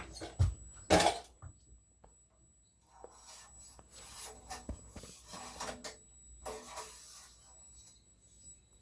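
Handling noise as the oil level is checked on a Caterpillar 3208 diesel: a sharp knock about a second in, then a few seconds of rubbing and scraping as the dipstick is pulled and wiped.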